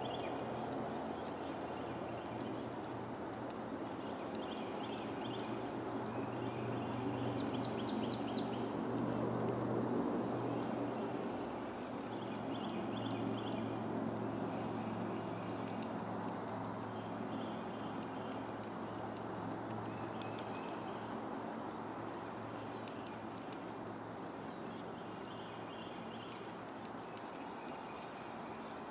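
Outdoor insect chorus: a steady, high-pitched trill that never lets up, with shorter chirping phrases recurring every few seconds, over a low background rumble.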